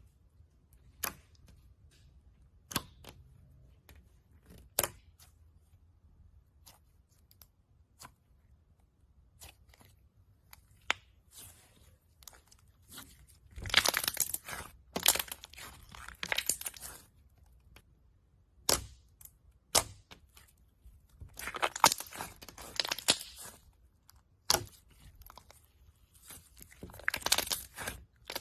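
Slime being handled: single sharp pops every second or two, then stretches of dense crackling and clicking about halfway through and again near the end.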